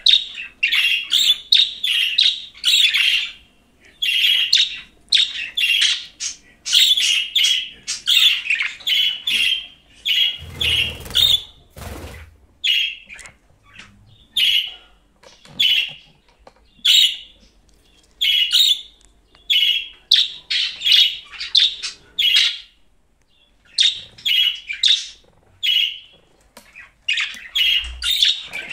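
Budgerigar chirping and warbling in quick runs of short, high chirps with brief pauses between runs. A brief low rumble sounds about eleven seconds in.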